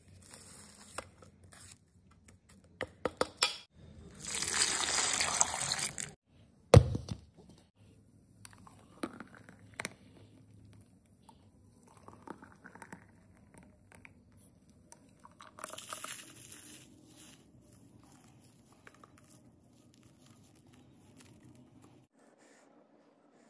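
A run of short food-preparation sounds: ice-cream bars handled in a steel mixer jar, the mixer running for about two seconds, a sharp knock, a thick milkshake pouring into metal cups, then crunchy toppings crumbled and sprinkled.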